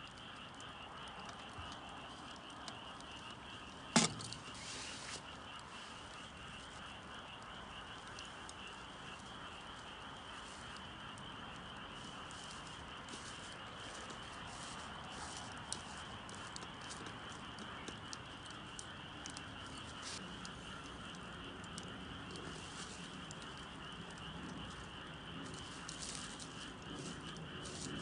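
Campfire crackling softly with scattered small pops and one sharp crack about four seconds in, over a steady high-pitched chorus of calling wildlife.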